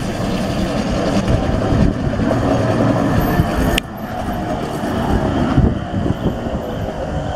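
Hi-rail service pickup truck passing close by on railroad track: its engine running and its wheels rumbling along the rails, growing louder as it comes alongside. A sharp click sounds a little under four seconds in.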